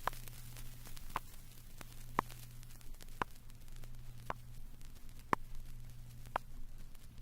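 Vinyl record playback noise: steady surface hiss and a low hum, with a sharp click repeating evenly about once a second. The sweep tone has risen beyond hearing, so only the disc's own noise is left.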